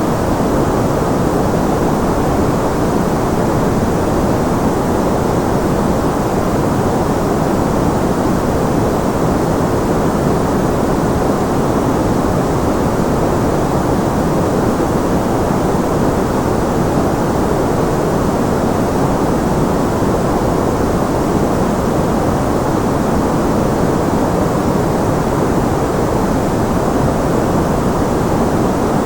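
Continuous, even masking noise of the white-noise kind, made for tinnitus masking, with no change in level or character. It is weighted toward the lows and mids, so it sounds like a deep, soft hiss rather than a bright one.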